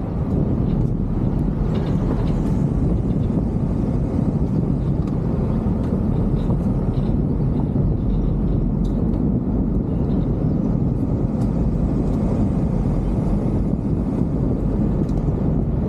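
Steady road rumble of a vehicle driving on an unpaved gravel road, picked up by a roof-mounted camera, with a few faint sharp ticks over it.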